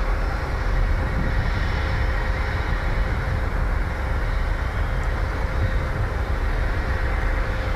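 Steady rumble of heavy construction machinery running at a building site, with a faint constant hum and no distinct knocks or pauses.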